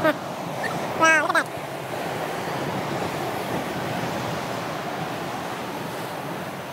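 Steady rush of coastal wind and sea surf at the top of a seaside lighthouse. About a second in comes one short, high-pitched vocal call.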